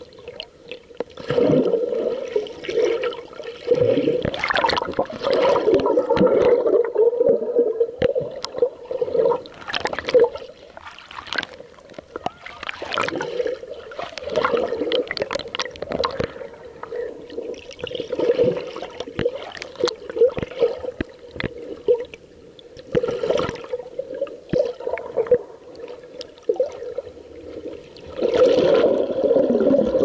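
Sea water heard from underwater: muffled sloshing and gurgling air bubbles around the submerged camera, with many scattered clicks and knocks.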